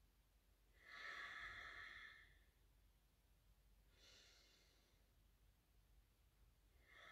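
A woman breathing audibly through a held yoga pose: a long, soft breath about a second in, a fainter one around four seconds, and another beginning near the end.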